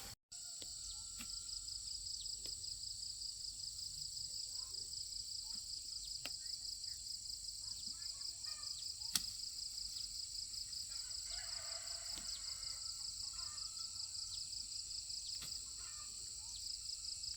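High-pitched steady insect chorus with a fast, even pulsing trill, with a few faint scattered calls underneath and a single sharp click about nine seconds in.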